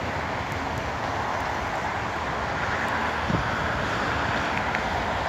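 Steady outdoor background noise with no distinct event, a dull even wash such as distant traffic or wind makes.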